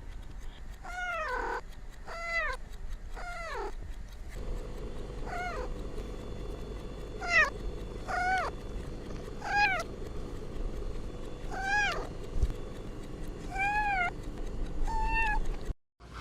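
Domestic cat meowing over and over: about ten short meows, each rising then falling in pitch, spaced a second or two apart.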